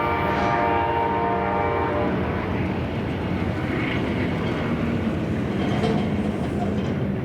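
Nathan K5LA five-chime air horn on an Amtrak P42DC locomotive sounding a steady chord that cuts off about two seconds in, then the passenger train's cars rolling past with steady wheel-on-rail rumble and clickety-clack.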